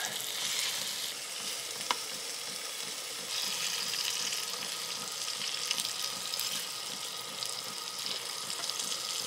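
Pieces of cod fillet sizzling in butter in a nonstick frying pan on a camping stove, a steady hiss, with one sharp clink of a utensil against the pan about two seconds in.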